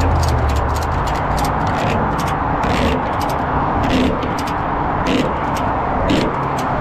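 Tow truck under way with a vehicle in tow: steady engine and road noise, with frequent sharp clicks and rattles. A low engine drone eases off about a second in.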